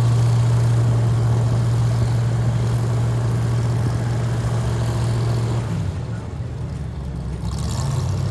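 Airboat's engine and air propeller running with a steady low drone; about six seconds in the drone changes pitch and gets a little quieter.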